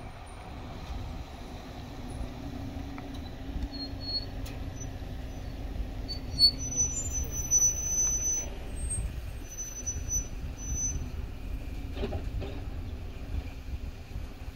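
Low rumble of a car running, heard from inside its cabin, with a faint steady hum. A few brief high-pitched squeaks come through the middle.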